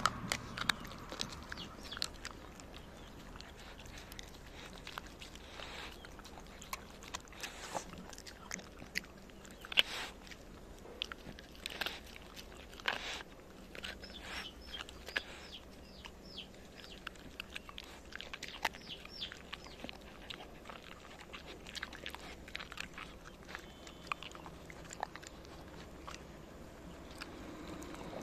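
A Shiba Inu chewing and crunching chicken carcass bones that were boiled for stock, with irregular sharp cracks as the bones break.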